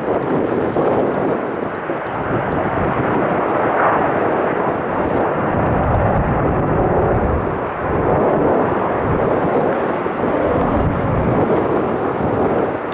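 Embraer E-175 regional jet's engines on departure, a steady jet rush mixed with gusty wind noise on the microphone.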